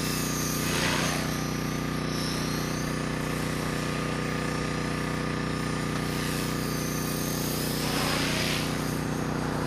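Electric RC helicopter (Align T-Rex 450 XL CDE) in flight: a steady whine from its rotor and motor, with brief louder whooshes about a second in and again near the end as it manoeuvres.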